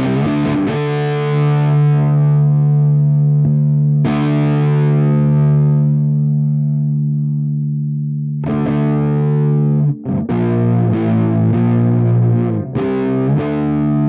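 Distorted electric guitar played through a DIY copy of a Model T JFET amp emulator pedal: heavy chords struck and left to ring out for several seconds, then a run of quicker chord strikes from about eight seconds in.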